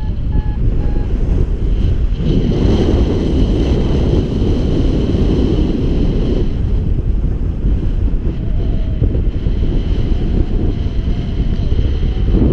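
Heavy wind buffeting the microphone of a paraglider pilot's camera in flight, a steady low rumble. A few short beeps sound in the first second.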